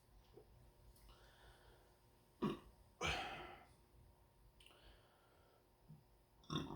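A person belching from a stomach full of carbonated soda: a short burp about two and a half seconds in, a longer one straight after, and another near the end.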